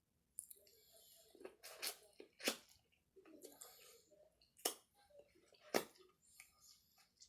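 Close-up eating sounds: quiet chewing with a few sharp, wet mouth smacks spaced out over several seconds.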